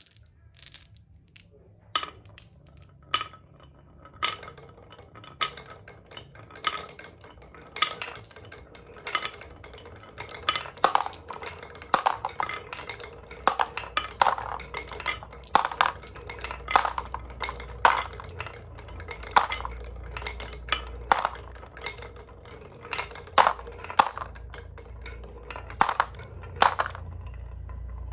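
Marbles running down a wooden HABA marble run: sharp clacks as they hit the track and each other over a low rolling rumble. The clacks come sparsely at first, then thicker from about ten seconds in, with the rumble growing louder in the second half.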